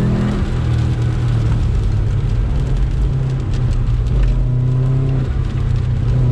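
Turbocharged Subaru flat-four engine of a GC8 Impreza running hard under throttle, its pitch dipping and rising a few times as the car is driven around the course.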